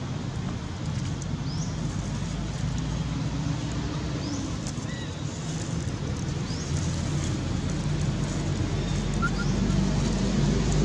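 Outdoor background of a steady low engine rumble like distant road traffic, growing louder near the end, with a few brief high chirps.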